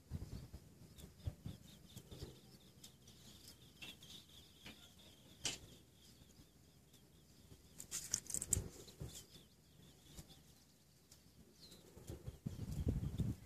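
Quiet outdoor ambience: scattered soft clicks, faint high chirping with a short cluster of sharp high chirps about eight seconds in, and a low rumble that builds near the end.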